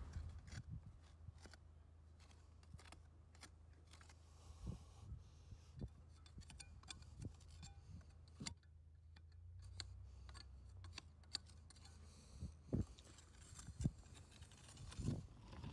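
Faint, irregular scraping and tapping of a hand tool raking out mortar joints between bricks, over a low steady hum.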